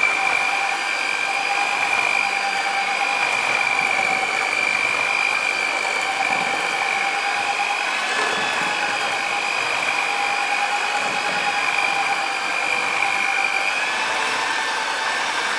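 Electric hand mixer running steadily, its twin beaters whisking eggs and sugar in a glass bowl to whiten the mixture; a constant high whine from the motor.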